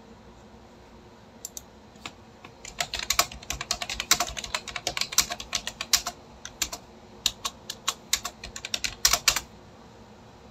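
Quick, irregular typing clicks, a few scattered at first, then a dense run from about two and a half seconds in, stopping about a second before the end.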